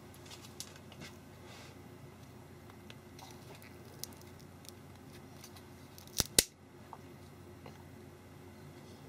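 Hard printed-plastic printer brackets handled in the fingers: light clicks and taps, then two sharp clicks close together about six seconds in, over a steady low hum.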